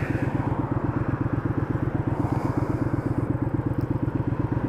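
Motorcycle engine idling with a steady, rhythmic low pulse while the bike is stopped at a junction.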